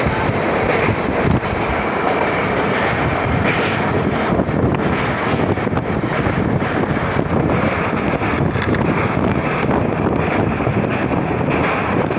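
Express passenger train running over a river bridge, a steady rumble with no clear rhythm, under heavy wind buffeting on the microphone.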